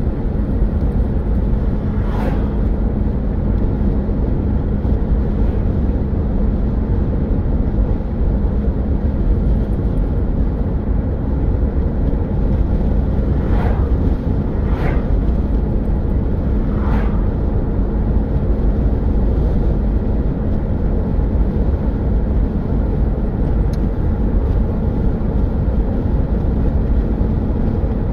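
A car driving at steady speed, with a continuous low rumble of road and engine noise and a steady drone underneath. Four brief whooshes stand out: one a couple of seconds in, and three close together around the middle.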